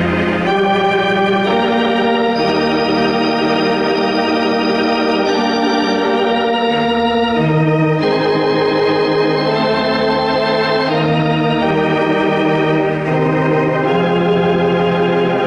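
Theatre organ playing a melody over full sustained chords and a held bass line, the notes changing every second or two.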